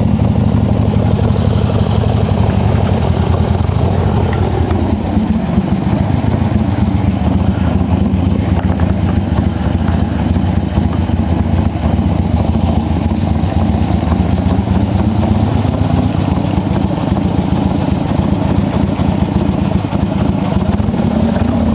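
Harley-Davidson Ironhead V-twin engine idling steadily. Its idle speed sags about five seconds in, then slowly comes back up in the second half.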